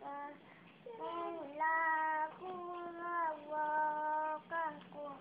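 A young child's voice chanting in a sing-song melody, holding long notes over about six short phrases, in the manner of a toddler practising Quran recitation.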